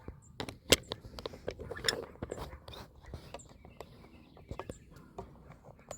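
Scattered light clicks and knocks, the sharpest about a second in, with a few faint high chirps in the background.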